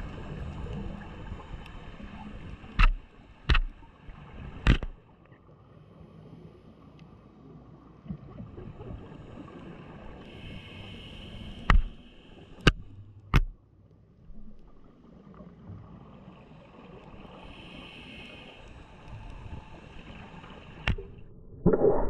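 Underwater sound through a camera housing: a muffled wash of water with scuba regulator exhaust bubbles gurgling past twice. Several sharp clicks or knocks break in, three close together about three seconds in, three more around twelve seconds, and one near the end.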